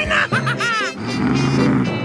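Background music with a run of quick rising-and-falling pitch sweeps in the first second.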